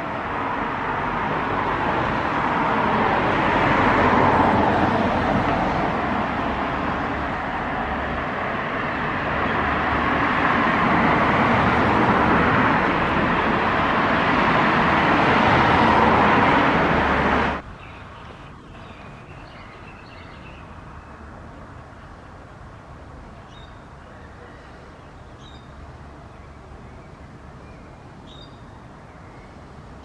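Road traffic noise, loud and swelling twice as vehicles go past, then cutting off suddenly a little over halfway through. After that a quieter steady background remains, with a few faint bird chirps.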